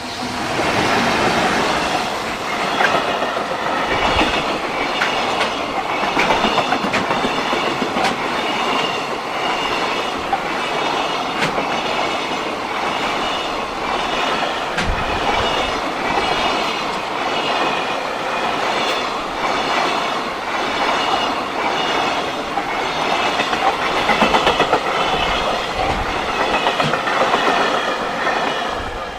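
A long JR Freight train passes close by, wheels clacking steadily over the rail joints, and cuts off near the end as the last wagon goes by. A level-crossing warning bell rings on a regular beat throughout.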